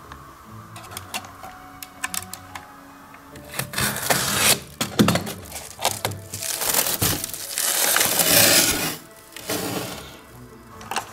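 Plastic packaging wrap crinkling and rustling as packed parts are handled, loudest through the middle and dying away near the end, with light clicks, over background music.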